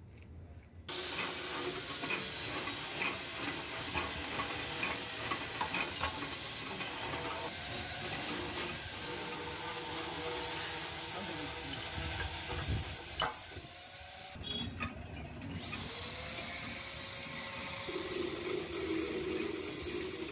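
Steady hiss of background noise with many small scattered metal clicks and taps as a steel boring fixture and its threaded rod are handled and fitted into a JCB bucket pin boss; a steady hum joins near the end.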